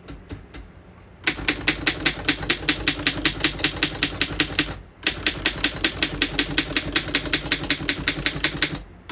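1911 Underwood No.4 desktop manual typewriter being typed on steadily, about six keystrokes a second, with a brief break partway through; a few light clicks come first, before the typing starts.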